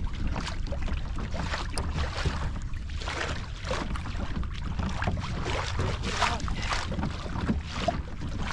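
Water lapping and splashing against a kayak hull in light chop, with irregular small splashes over a steady rumble of wind on the microphone.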